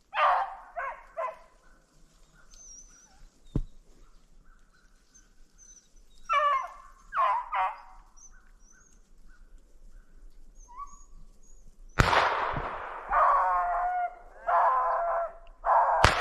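Rabbit hounds baying and barking: a few short barks right at the start, three more around the middle, then several dogs baying together over the last few seconds. There is one sharp knock about three and a half seconds in.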